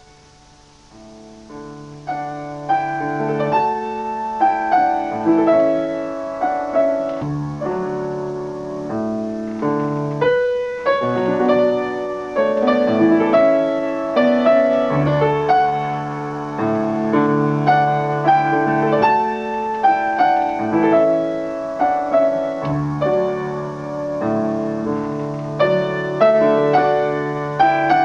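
Grand piano played solo, opening with a few soft notes and growing fuller about two seconds in, with a short break in the playing about ten seconds in.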